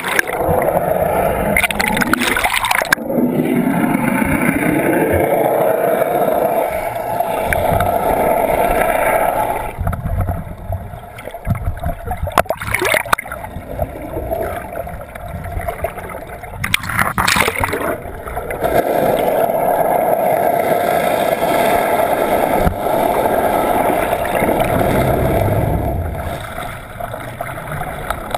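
Muffled rush of water and bubbles streaming past an underwater camera housing beside a moving boat, with a few sharp knocks against the housing.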